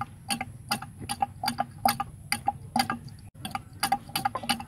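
Quick, regular clicking, about four a second, from a Tata Indica's open coolant reservoir as the radiator hose is squeezed. The mechanic takes this sound from the reservoir as the sign that the thermostat valve has failed.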